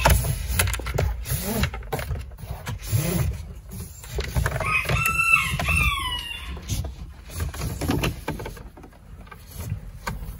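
RCA audio cable being fed through a car's interior trim: rubbing, rustling and scattered knocks of the cable and panels being handled. About five seconds in comes a high call of a few segments, each falling in pitch at the end, that sounds like a crow or squeal.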